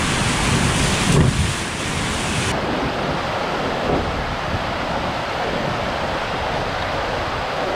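Whitewater rushing through a river rapid below a mill weir: a steady, loud churning of water. The hiss turns a little duller about two and a half seconds in.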